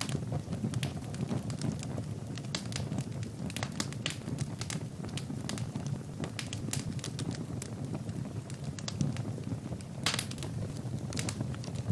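Wood fire burning in a fireplace: a steady low rumble of flames with frequent sharp crackles and pops of burning logs, and a brief flurry of louder pops about ten seconds in.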